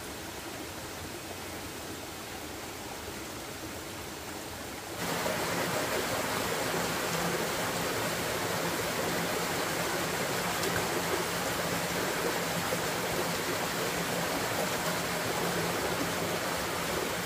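Steady rushing of a rocky forest stream. About five seconds in it becomes louder and fuller: the splash of a small cascade falling into a pool.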